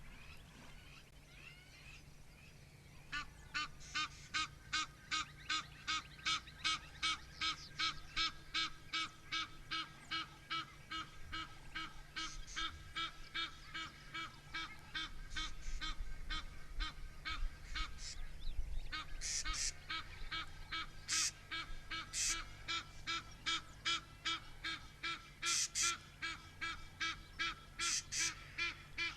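A bird calling in a long, regular series of short, harsh notes, about two a second, starting about three seconds in; in the second half, brighter, higher notes come in here and there among them.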